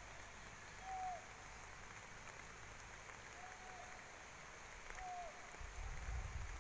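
Three short whistled bird calls, a second or two apart, each a single clear note that drops at the end, over faint background hiss. A low rumble near the end.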